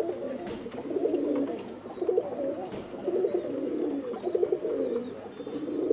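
Domestic pigeons cooing, several at once, in overlapping low warbling calls. A thin, high chirp repeats evenly about two to three times a second above them.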